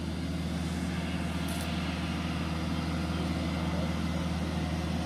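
A heavy engine idling steadily, a low hum with several steady tones.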